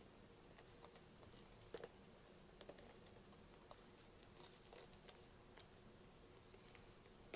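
Near silence: room tone with a faint steady hum, and scattered faint clicks and rustles of handling.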